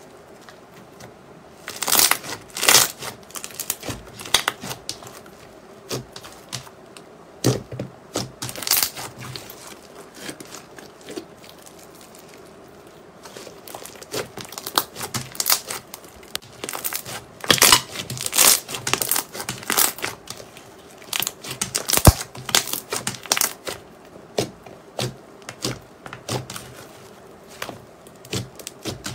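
Thick white slime squeezed and kneaded by hand, giving irregular clusters of sharp crackles and pops, quieter for a few seconds midway.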